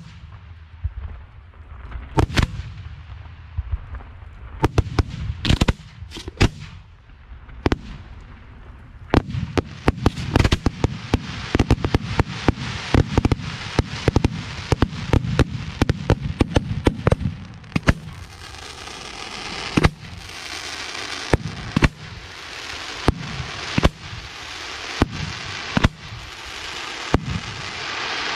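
Aerial firework shells bursting: a few separate sharp bangs at first, then from about nine seconds in a rapid barrage of reports, giving way after about eighteen seconds to a steady hiss with scattered bangs.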